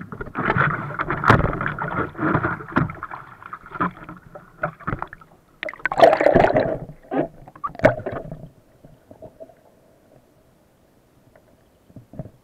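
Sea water splashing and sloshing against a waterproof camera housing at the surface, with irregular knocks and gurgles. After about eight seconds the camera is under water and the sound drops suddenly to a faint, muffled underwater hush.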